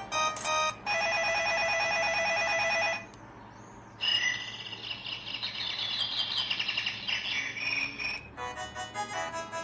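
Samsung SGH-A800 mobile phone ringtones playing one after another. A steady, rapidly pulsing electronic ring runs for about two seconds, then stops. After a short pause comes a tone of rapid high warbling chirps lasting about four seconds, and a new melody starts near the end.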